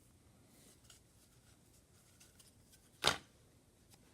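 Trading cards being handled on a table: faint small ticks, with one short sharp snap about three seconds in.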